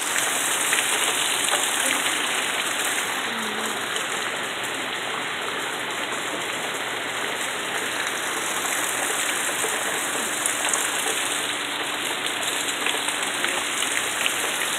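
Rain falling steadily, with scattered sharper drop hits.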